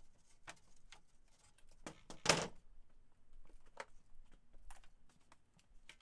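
Ripped plywood sheets being handled on a sawhorse bench: scattered light knocks and scrapes, with one louder thump about two seconds in as a sheet is set down.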